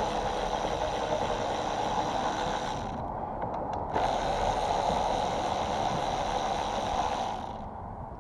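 1/4-inch ratchet with a 5/16-inch socket spun quickly to run out the carburetor's mounting screws on a Briggs & Stratton mower engine, its pawl clicking so fast it blurs into a steady rasp. It runs in two spells with a short pause about three seconds in, and stops shortly before the end.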